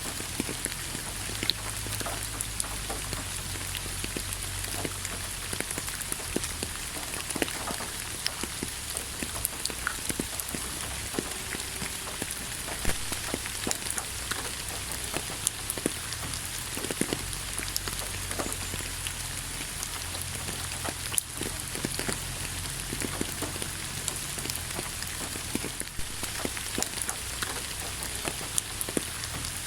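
Steady rain falling on a surface, a continuous hiss with many scattered individual drops ticking, over a faint low rumble.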